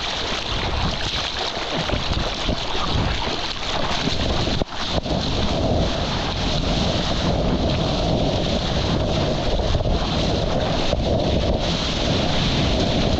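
Ocean water sloshing and splashing around a GoPro at the surface, with wind noise rumbling on the microphone; the sound dips sharply for a moment about four and a half seconds in. Near the end a small wave breaks into whitewater right beside the camera.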